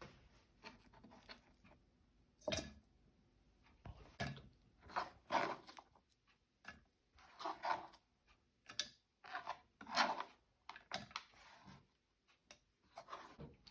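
Sliced onion being scraped and dropped into a container: faint, irregular rustles and crunches with an occasional sharp click.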